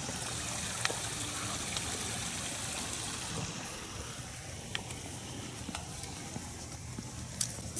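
A steady rushing hiss, with a few light clicks of footsteps on a paved path.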